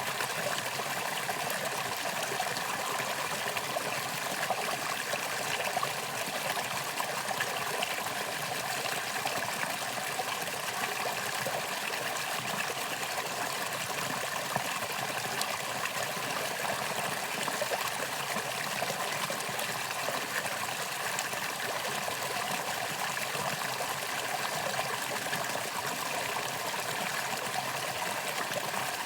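Mountain stream flowing over rocks: a steady, even rush and babble of water.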